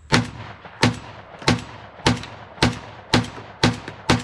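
Kalashnikov USA KS-12 semi-automatic 12-gauge shotgun fired eight times in rapid succession, about two shots a second, each shot with a short echo.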